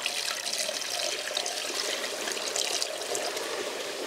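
Water pouring steadily as a car radiator is flushed with fresh water poured through a funnel on the top hose. It runs freely through, a sign that the radiator's passages are not blocked.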